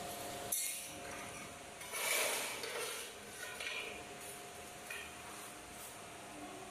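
Tiling hand tools at work on a floor: a sharp click about half a second in, a louder scrape about two seconds in, then a few lighter clinks and taps.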